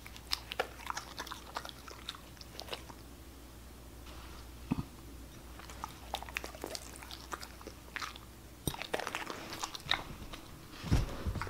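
Siberian husky licking and chewing cake donut crumbs off a ceramic plate: irregular wet clicks and ticks of tongue and teeth on the plate, coming faster about three-quarters of the way in. Louder, lower bumps come right at the end as the dog moves.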